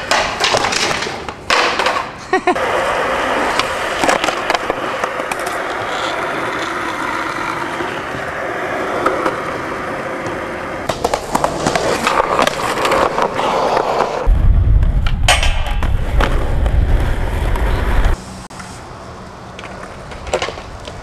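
Skateboard wheels rolling on pavement, broken by sharp clacks and smacks of the board hitting the ground as tricks are landed and bailed, with a deep low rumble for about four seconds past the middle.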